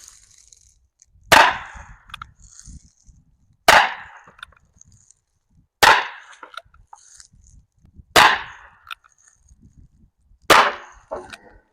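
Ruger Single-Six single-action revolver firing .22 Long Rifle, five sharp shots spaced a little over two seconds apart. Each crack is followed by a short echo.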